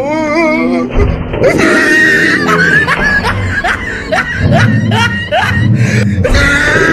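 Upbeat background music with a dubbed laughter track over it: a rapid string of short chuckling laughs.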